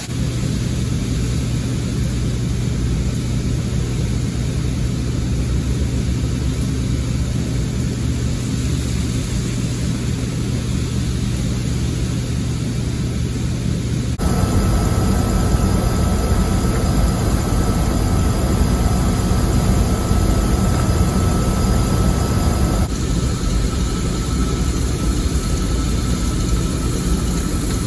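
Loud, steady drone of farm machinery running, with a low hum. The sound changes abruptly twice, about halfway through and again later.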